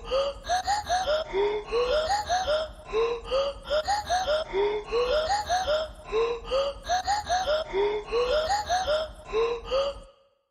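Background music: a short phrase of quick notes that slide upward, looped over and over, cutting off suddenly just before the end.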